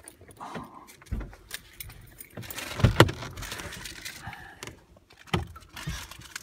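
Handling noises inside a parked car: scattered clicks, rattles and small knocks as someone moves about in the driver's seat, with a louder thump and rustle just under three seconds in.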